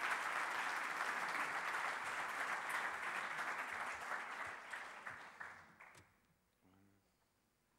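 Audience applauding, dying away and stopping about six seconds in.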